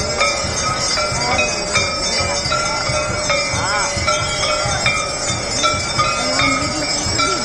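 Ganga aarti bells clanging without a break, their ringing struck again and again, over the hubbub of a large crowd.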